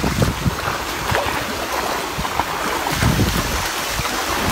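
Footsteps wading through shallow running river water: irregular splashes over the steady rush of the stream.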